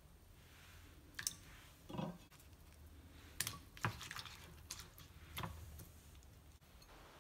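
Raw potato strips being dropped and pressed into a glass bowl of water: a series of faint wet splashes and small knocks against the glass, several over a few seconds.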